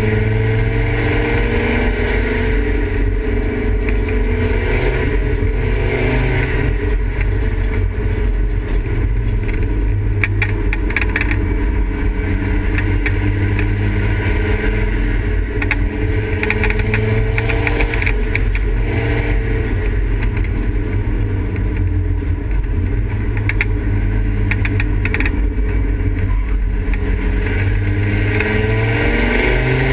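Volvo 850 race car's inline five-cylinder engine heard from inside the stripped cabin, revving hard and easing off again and again as the car is driven around a circuit, its pitch rising and falling.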